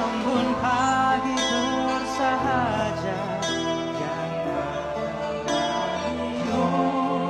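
Live band playing a slow pop ballad: guitar and sustained chords under a wavering melody line.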